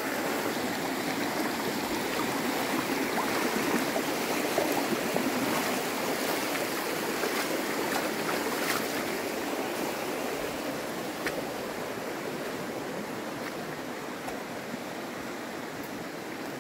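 Creek water running over rocks, a steady rushing that grows a little fainter near the end.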